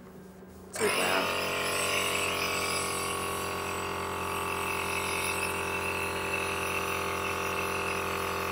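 Nebulizer air compressor switched on about a second in, then running steadily with an electric motor's hum and a hiss of air through the mask.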